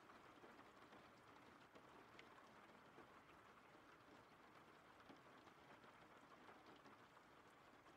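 Faint steady rain: a soft even patter with scattered small drop ticks.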